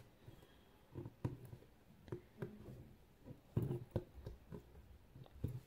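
Faint, irregular taps and scratches of an aari needle piercing and being drawn through fabric as gold cut beads are stitched down; the loudest cluster comes about three and a half seconds in.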